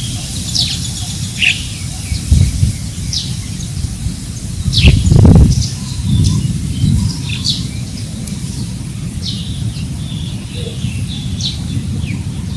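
Wind gusting on the microphone as a low rumble, strongest about five seconds in, while several birds give short, quick chirps throughout.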